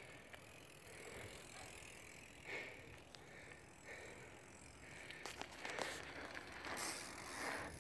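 BMX bike rolling slowly on asphalt: faint tyre noise and the rear hub's freewheel ticking, with a few light clicks and knocks in the second half as the rider works the bike.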